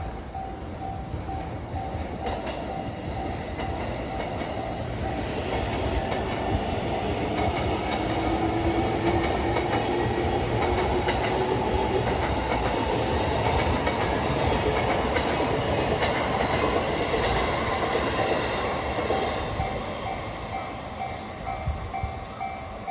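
JR East E233-1000 series electric train passing at a level crossing, its wheels clattering over the rail joints as it builds to a loud, steady rush and then fades. A level-crossing warning bell rings in an even repeating pattern, plainest at the start and again near the end as the train clears.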